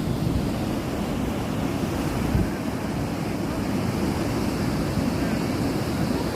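Sea surf washing in steadily, mixed with wind buffeting the microphone.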